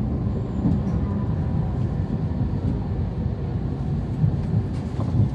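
Steady low rumble inside a Shinkansen carriage.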